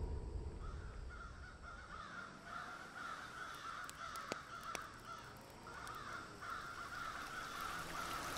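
Birds calling over and over in the background, with two short clicks a little past the middle.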